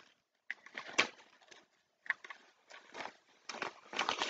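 Rustling and crinkling of black plastic packaging being handled and pulled off a new tripod, in short irregular bursts with a sharp click about a second in.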